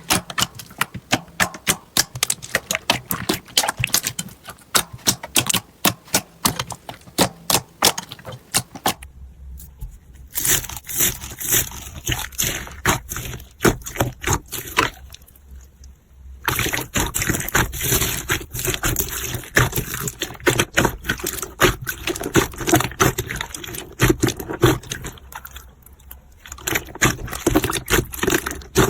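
Slime being squeezed, poked and stretched by hand, making rapid sticky clicks and pops. About nine seconds in, the clicking changes to a denser crackle over a low hum.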